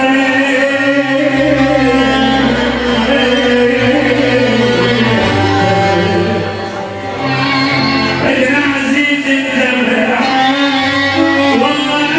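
A male singer performing an Arabic song live into a microphone with band accompaniment.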